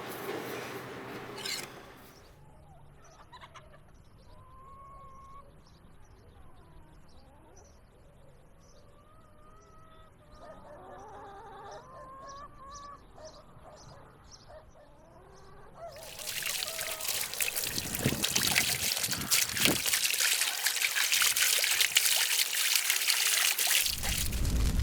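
Faint bird or poultry calls, short and wavering. About two-thirds of the way through a loud, steady rushing, splashing noise takes over, like water being poured.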